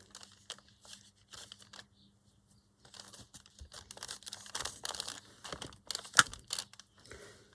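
Paper rustling and crinkling as pieces are handled and pressed down, sparse at first and busier from about three seconds in, with one sharp tap about six seconds in.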